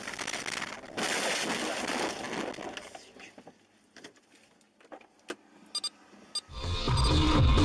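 Car crash: a sudden impact followed by about two seconds of crunching and breaking glass, then scattered small clicks and ticks of debris as it dies away. Electronic music with a heavy beat comes in near the end.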